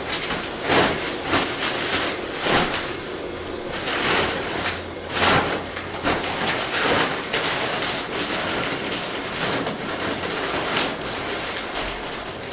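Repair work in an apartment: a run of irregular rough scraping strokes, about one or two a second.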